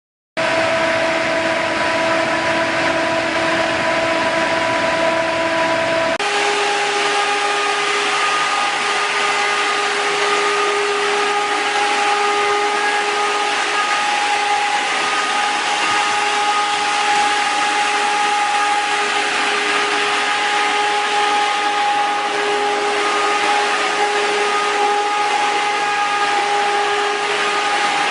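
Wind-tunnel fan blowing a strong wind of about 16 m/s: a loud, steady rush of air with a whine from the fan. The whine jumps to a different pitch about six seconds in, then holds steady.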